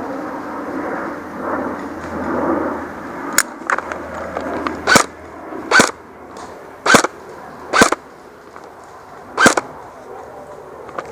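Airsoft gun fired in single shots: six or seven sharp pops spaced about a second apart, starting a few seconds in, over a rustling background.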